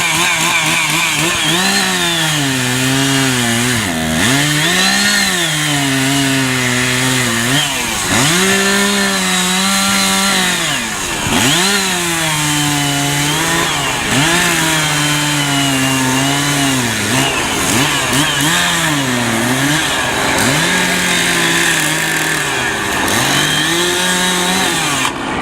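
Chainsaw cutting into wood, its engine revving up and falling back again and again as it carves, then cutting off near the end.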